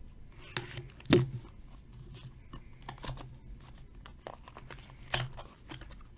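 Seal and plastic wrap being cut and torn off a sealed Leaf Ultimate Hockey cardboard card box, then the box flap pried open: a string of short crackles and scrapes, the sharpest tear about a second in.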